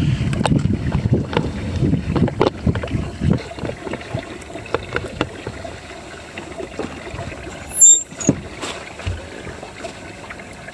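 Small waves lapping and slapping against a boat's hull, with wind buffeting the microphone; the knocking is busiest in the first few seconds. A brief, sharp high-pitched squeak about eight seconds in is the loudest moment.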